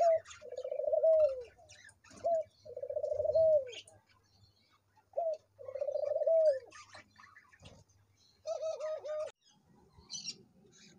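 White doves cooing: three two-part coos, each a short rising note followed by a longer rolling note that dips at its end, then a quicker run of four short coos near the end.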